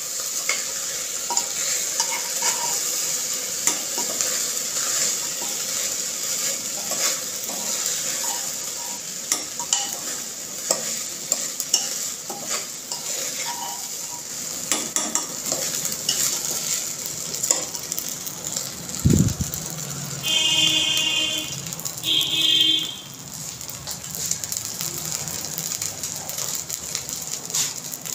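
Washed rice sizzling as it fries in ghee in a pressure cooker, with a metal spoon scraping and clinking against the pot as it is stirred. About twenty seconds in, a dull thump is followed by two short pitched tones over the sizzle.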